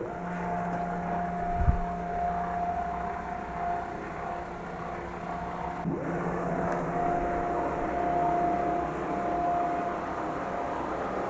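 Stepper motor driving a DIY CNC router's X-axis gantry through a reduction and rack-and-pinion, giving a steady whine of a few held tones as the carriage travels along its rail. A brief low thump comes just under two seconds in.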